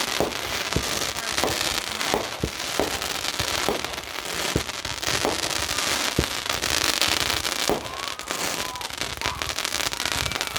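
Consumer fireworks going off: a run of sharp bangs, about one or two a second, over continuous crackling.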